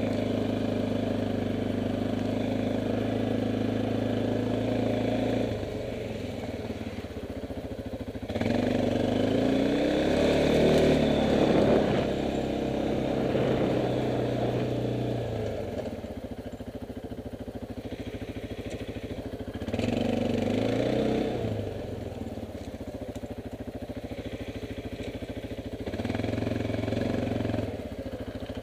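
Kymco MXU 500 quad's single-cylinder engine running under way. It holds steady at first, then the throttle is opened in surges, rising in pitch and falling back: once about a third of the way in, again around two-thirds, and briefly near the end, easing off in between.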